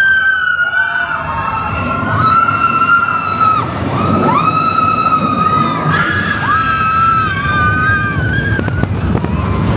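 Roller coaster riders screaming, several voices in long, high held screams that overlap and come one after another, over the train's low rumble.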